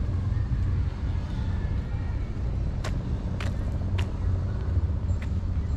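A steady low engine hum, with a few sharp clicks or knocks around the middle.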